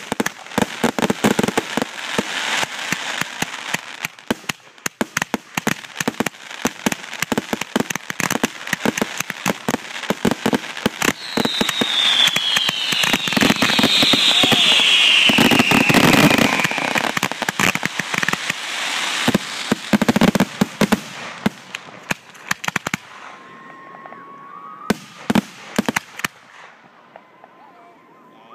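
Fireworks finale going off at close range: a rapid barrage of bangs and crackling that builds to its loudest around the middle, with a high falling whistle, then thins to scattered pops near the end.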